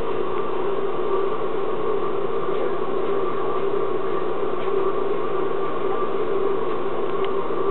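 Steady mechanical hum over a hiss, holding one even pitch, with a few faint ticks.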